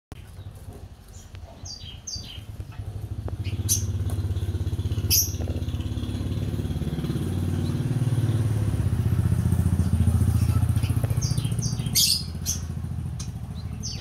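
A motorcycle engine running, growing louder from about three seconds in and easing off after about twelve seconds. Over it, caged spiderhunters give short, sharp, high chirps, a few near the start and a cluster near the end.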